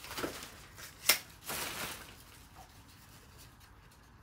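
Folding umbrella being taken out of its bottle-shaped case and opened: a sharp click about a second in, then a brief rustling swish of the canopy fabric.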